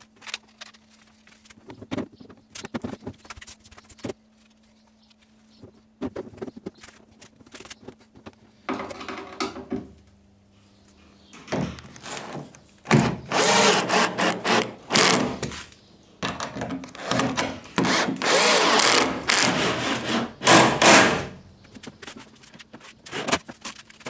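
Cordless drill driving screws into a wooden canoe's gunwale, in a series of short bursts from about halfway in; before that, scattered knocks and taps of handwork on the hull.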